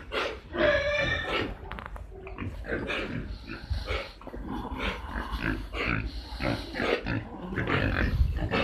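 Piglets squealing and grunting: one high squeal about a second in, then a run of shorter grunts and squeals.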